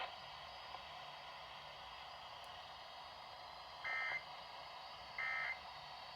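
Emergency Alert System end-of-message (EOM) data bursts: two short, buzzy digital tone bursts about 1.3 s apart over faint radio static hiss, signalling the end of the alert.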